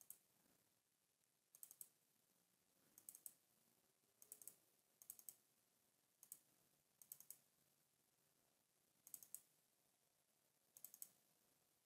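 Faint computer mouse button clicks, mostly quick double-clicks, repeating every second or two.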